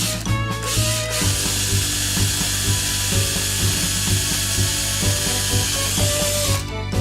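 Power tool grinding, a steady hiss that starts about a second in and stops near the end, over background music with a steady beat.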